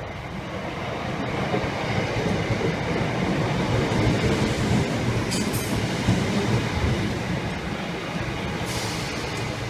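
Southern electric passenger train running along the platform, its rumbling running noise building over the first few seconds and then holding, with two brief high-pitched bursts, one about five seconds in and one near the end.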